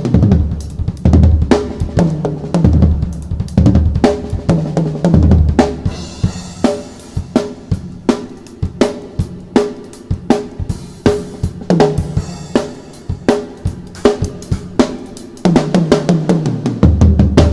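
Drum kit played in a steady groove: bass drum, snare and cymbals struck in an even rhythm, getting louder and fuller near the end.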